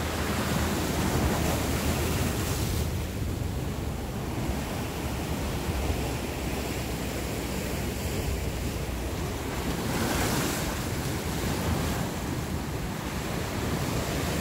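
Rough sea surf breaking on a rocky shore: a steady wash of waves that swells up about two seconds in and again, loudest, about ten seconds in, with wind rumbling on the microphone.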